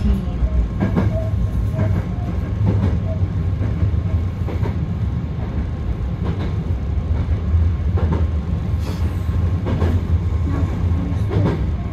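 Hankyu Kobe Line electric train running, heard from inside the car: a steady low rumble with an irregular clack every second or two as the wheels pass rail joints.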